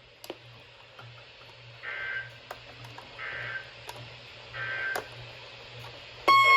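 Three short electronic beeps about a second and a half apart, over a low electrical hum and a few sharp clicks. Near the end a loud siren-like alarm tone starts suddenly and rises slowly in pitch.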